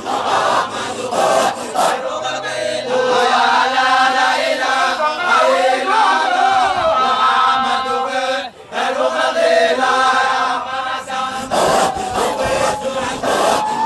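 A group of voices chanting a Sufi dhikr together, the melodic line rising and falling. A steady beat about three times a second runs under the chant for the first couple of seconds, stops, and comes back near the end.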